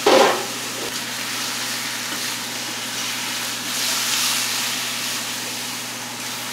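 Raw chicken pieces frying in hot oil in a steel wok: a loud burst of sizzling right at the start as the chicken goes in, then steady sizzling while the pieces are stirred with a spatula.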